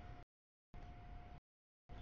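Double-stack container freight train passing a grade crossing: a low rumble with a steady tone over it. The sound keeps cutting out to dead silence, in pieces about half a second long about once a second, a sign of the camera's audio stream dropping out.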